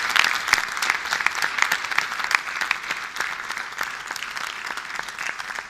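Audience applauding: dense hand clapping, loudest at the start and easing slightly toward the end.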